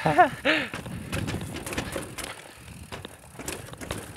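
Mountain bike rattling down stone steps, with repeated knocks as it drops over each step. A short vocal shout comes at the very start.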